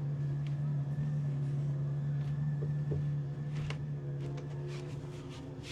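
A steady low hum, as from a running motor, with a few light knocks and taps over it.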